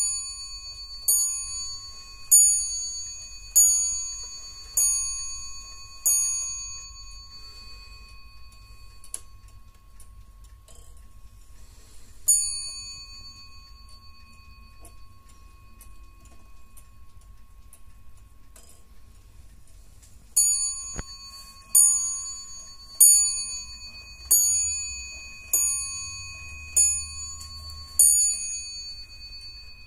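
Warmink Dutch 8-day Sallander wall clock striking on its bell. First six strikes about a second and a quarter apart, each ringing on as it fades, then a single strike, then seven strikes at the same pace. The movement ticks faintly in between.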